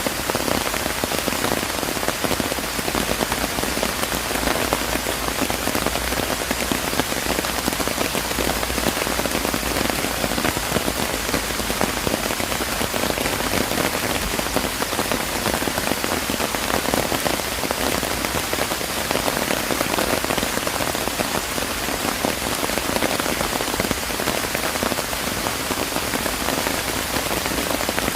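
Steady rain falling, a dense even hiss of many small drop patters on surfaces.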